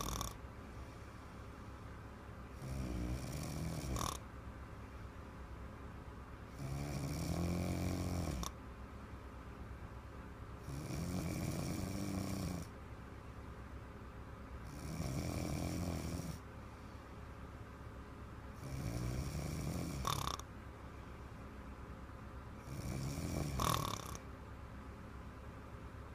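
A little girl snoring in slow, regular breaths: six loud snores about four seconds apart, each lasting one to two seconds, a few ending in a short click.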